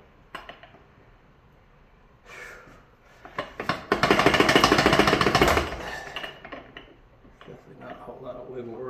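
Metal-on-metal clicking and rattling as a Mercury inline-six outboard's crankshaft, with its reed cages and bearing carriers, is worked down into the engine block. A few soft clicks come first, then a loud rapid rattle lasting about a second and a half, about four seconds in.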